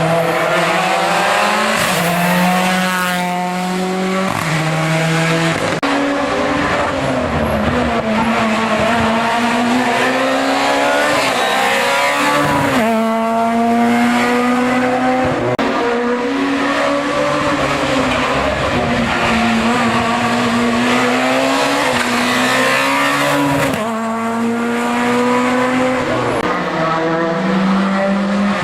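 Hill-climb race car engine under hard acceleration, its pitch climbing and then dropping sharply at each upshift, over and over through the gears.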